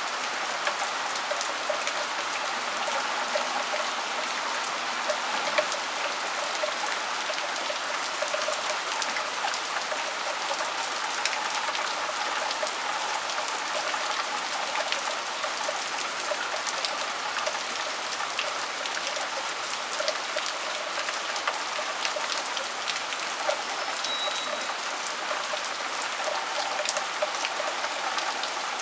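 Steady rain falling, with many separate drops ticking sharply through the even hiss.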